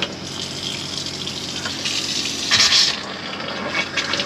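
Kitchen mixer tap running into a stainless steel sink, the stream splashing on the steel, with a brief louder gush about two and a half seconds in. The tap is fed by town water pressure with the onboard pump switched off.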